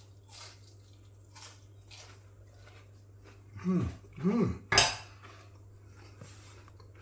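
Cutlery on a plate: a few light taps, then one sharp clink about two thirds of the way through, the loudest sound. Just before the clink come two short pitched sounds that rise and fall, over a steady low hum.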